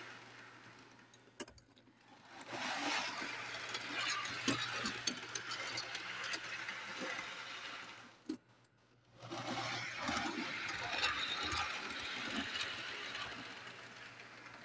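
Piko EN57 model electric train running on analog power with no sound decoder, so only its mechanism is heard: motor and gear whir with wheels ticking over the track. It grows louder and fades as it passes, twice, with a brief break about eight seconds in.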